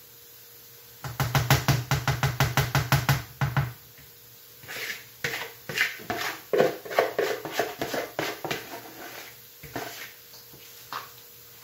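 A metal spoon knocking and scraping quickly inside a plastic bowl of akara bean batter. It starts as a fast run of taps, about six or seven a second, then turns into slower, irregular knocks and scrapes for several seconds before it stops near the end.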